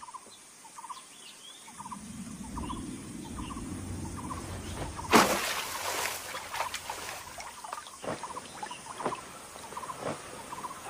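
Outdoor wildlife ambience: many short, small chirping calls, a low rumble that comes in about two seconds in, and one sudden noisy burst about five seconds in, followed by scattered clicks.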